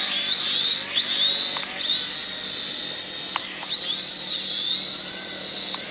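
F69 toy quadcopter's small motors and propellers whining in flight, a high pitch that wavers up and down as the throttle changes.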